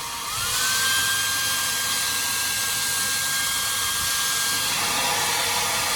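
1800 W hair dryer running: a steady rush of blown air with a thin motor whine. Shortly after the start it gets louder and the whine rises in pitch, then holds steady.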